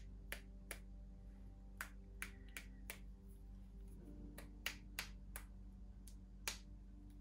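Sharp clicks of a paintbrush being flicked to spatter watercolour paint onto paper, about ten at irregular intervals, some in quick pairs.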